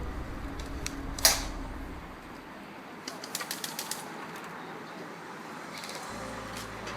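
Airsoft guns firing: one sharp shot about a second in, then a quick run of about eight shots a little after that, with a few scattered shots later.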